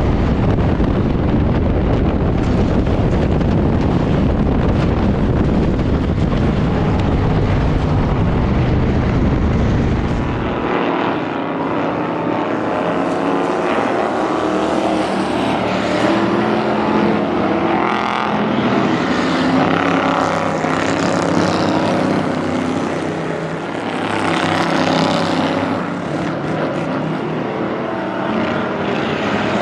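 Inside a Ford Crown Victoria race car, its V8 running hard at racing speed, loud with a heavy low rumble. About ten seconds in this gives way to race-car engines heard from trackside, revving up and down as they lap.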